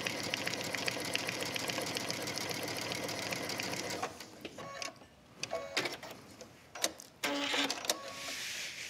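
A Brother sewing machine runs steadily, topstitching a triple stitch through waxed canvas, and stops about four seconds in. A few scattered clicks and short rustling noises follow.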